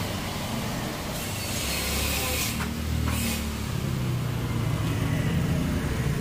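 Motor-vehicle engines running on the road, a low rumble that builds a little toward the end, with a steady hiss over it.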